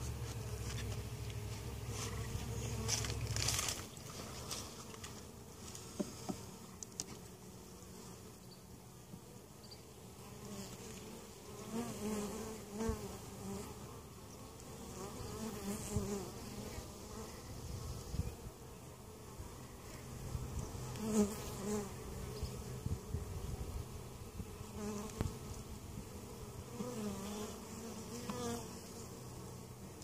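Honey bees buzzing over an open hive, with single bees flying close past so that the buzz swells and bends up and down in pitch again and again. A low rumble runs under it for the first few seconds, and a few light clicks are heard.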